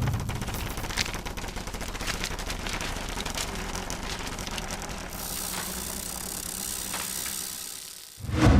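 Sheets of paper being handled and crumpled. It is a dense, irregular crackle of sharp crinkles, which gives way about five seconds in to a smoother rustling hiss.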